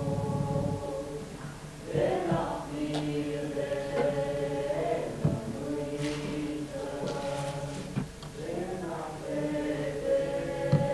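Voices singing together in slow, held notes that slide from one pitch to the next, with a sharp knock near the end.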